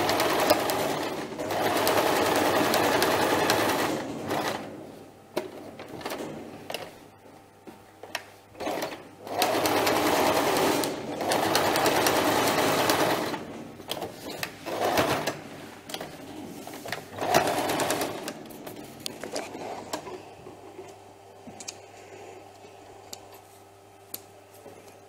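Domestic electric sewing machine stitching through padded quilted cotton in stops and starts: two long runs of about four seconds each, then a few short bursts. Small clicks near the end as the thread is snipped with scissors.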